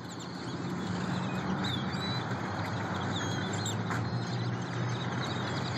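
Large flock of birds in trees, a loud dense chorus of many overlapping chirps and whistles, over a steady low hum.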